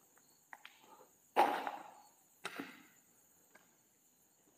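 Two sudden knocks about a second apart, the first louder and trailing off briefly, with a few faint clicks before them.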